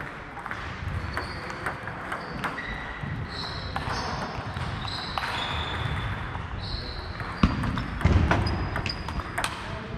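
Table tennis balls clicking off tables and bats, from this and neighbouring tables, with short high shoe squeaks on the hall floor. A rally starts near the end, with the sharpest hits at about seven and a half and eight seconds in.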